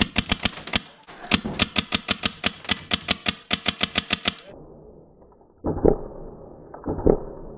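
Airsoft rifle firing a rapid, evenly spaced string of sharp shots, about seven a second, after a shorter burst in the first second. A bit past halfway the sound turns dull and muffled, with heavy thumps about once a second.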